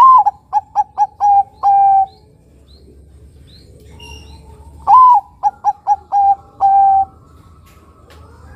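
Zebra dove (perkutut) of Bangkok–local crossbred stock singing two cooing phrases, the second a few seconds after the first. Each opens with a loud note that rises and falls, runs into several short quick coos, and ends on a longer held coo.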